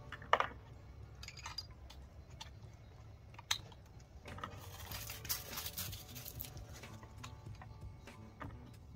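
Scattered small clicks and rustling from a bolt rifle and its scope being handled on a wooden shooting bench, over a steady low rumble. A sharp click comes about three and a half seconds in, and a longer stretch of rustling comes a little later.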